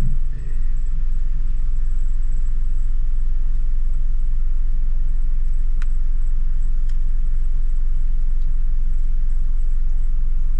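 Steady low rumble of a car's engine and road noise heard from inside the cabin while driving, with two faint clicks about six and seven seconds in.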